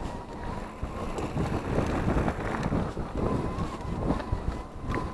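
Riding a mountain bike over a dirt trail: wind buffeting the camera's microphone, with uneven tyre rumble and rattling of the bike over the ground, and a faint steady whine.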